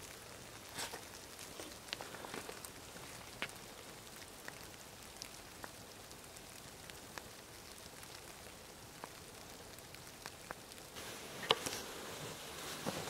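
Faint, scattered small clicks and crackles over a low steady hiss, with a brief cluster of louder ones near the end.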